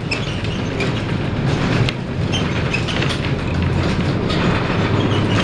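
Memphis streetcar #553 rolling along its rails, heard from inside the car: a steady low rumble of wheels and running gear with a few brief clicks.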